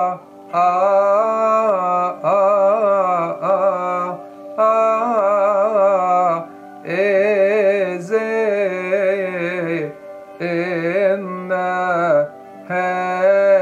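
A male voice chanting a Coptic church hymn, drawing out the word "aroma" in a long melisma that winds up and down in ornamented turns, in phrases of one to three seconds with short breaks between, over a steady low drone.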